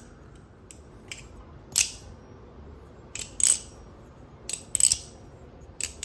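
Mako clone balisong (butterfly knife) being flipped: irregular sharp metallic clacks as the handles swing open and shut against the blade, a few of them trailing a brief high ring.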